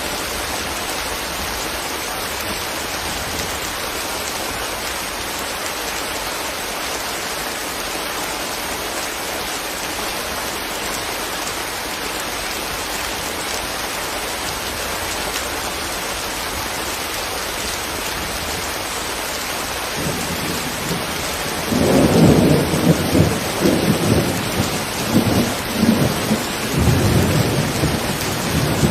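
Steady rain falling. About twenty seconds in, a loud rolling rumble of thunder sets in and keeps going in swells.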